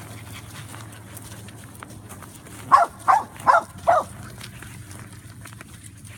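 A dog barking four times in quick succession, about three seconds in.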